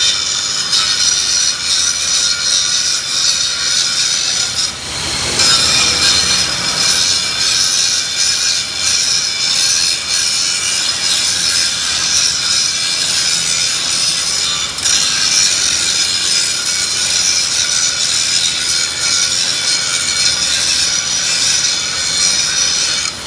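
Electric arc welding on a steel roller: a loud, steady, harsh hiss from the arc that runs on continuously, with a brief drop about five seconds in.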